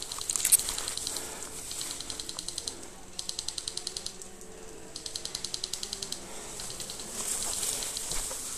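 Airsoft electric guns firing full-auto bursts: about five short bursts of rapid clicks, roughly a dozen shots a second, each burst lasting under a second.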